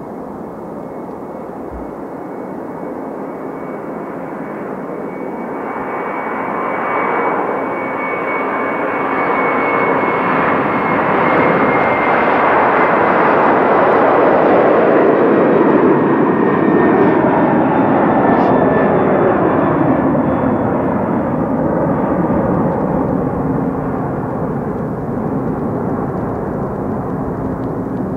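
Boeing 767-300's twin jet engines at takeoff thrust: a roar that builds to a peak as the airliner lifts off and passes, then fades as it climbs away, with a high whine that slowly falls in pitch.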